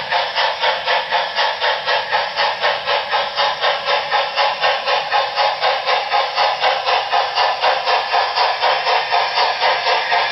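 Sound decoder of a Broadway Limited Paragon 4 HO-scale Southern Pacific GS-4 model steam locomotive playing steady exhaust chuffs, about four to five a second.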